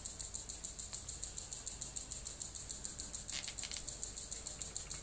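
A brief rustle of thin coax cable and cable ties handled in the hands about three seconds in, over a steady high-pitched hiss that pulses several times a second.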